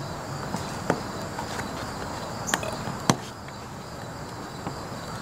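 A plastic RV plumbing vent cap being handled and pressed onto its vent pipe: several sharp plastic clicks and taps, the loudest about one second and three seconds in, over a steady background hiss.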